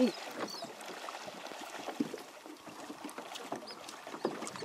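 Water sloshing against a small boat's hull, with scattered faint clicks and a couple of brief high chirps.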